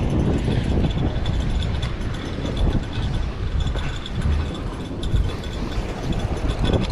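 Wind buffeting the microphone over surf washing against the rocks, with a light mechanical clicking from a fishing reel being worked.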